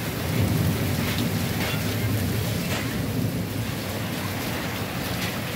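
Heavy storm rain pouring onto a wet concrete courtyard and leafy trees: a steady, dense hiss over a continuous low rumble.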